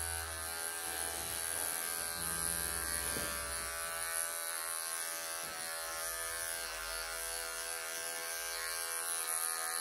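Wahl electric pet clippers running steadily with an even buzz as they shave the fur on a Persian cat's throat and chest.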